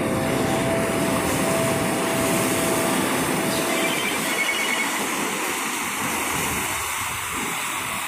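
Ocean surf breaking over rocks and foaming up the sand, a steady rushing wash of water.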